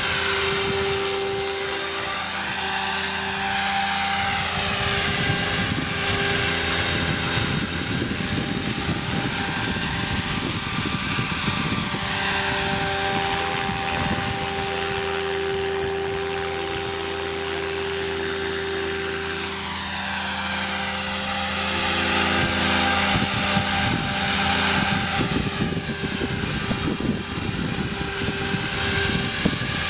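Electric 500-size radio-controlled helicopter (HobbyKing 500GT, a T-Rex 500 clone) flying: a steady motor and gear whine over the rotor's whoosh, its pitch sliding up and down several times as the helicopter moves about and passes close.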